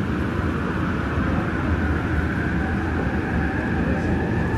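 Yongin EverLine light-metro car running, heard from inside the cabin: a steady low rumble with a whine that rises slightly in pitch as the train pulls away from a station. The car is a Bombardier ART 200 driven by linear induction motors.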